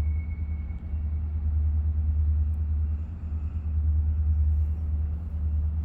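Deep, continuous low rumble that swells and eases slowly, like distant trains: the unexplained outdoor noise being recorded, which does not hold a constant pitch the way a factory machine would.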